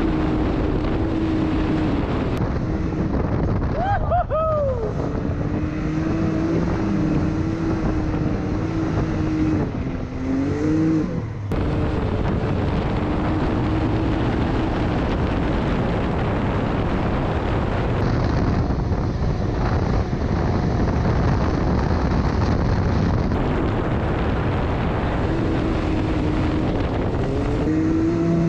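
A vehicle engine running at a steady speed under wind noise on the microphone, its pitch dipping and rising briefly a few times.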